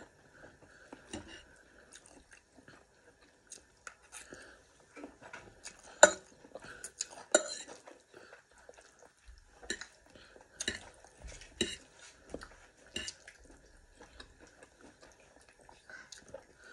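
Close-up eating noises: cutlery clinking and scraping against a plate in scattered, irregular taps, with a couple of sharper clinks standing out about six and seven seconds in.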